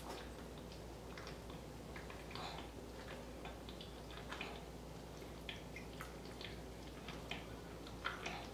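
A person chugging soda: faint swallowing gulps and mouth clicks at irregular intervals, roughly one a second, over a low steady hum.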